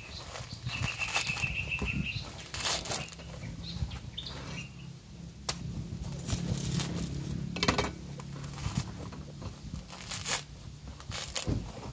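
A large knife cutting into the dry, fibrous husk of a sprouting coconut, with irregular sharp cuts and the tearing and rustling of husk fibres being pulled away by hand.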